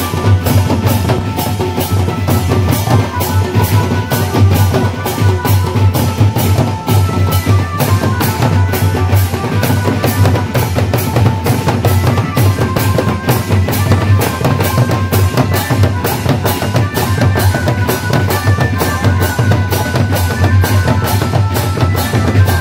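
Folk drum band playing a fast, steady dance rhythm at about three strokes a second, with deep booms from double-headed barrel drums and a bowl-shaped kettle drum, and hand cymbals clashing. A high melody line runs over the drumming.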